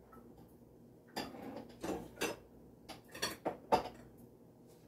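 Kitchen utensils and dishes knocking and clinking as they are handled: a few separate short knocks, then a quick run of clicks and clinks about three seconds in.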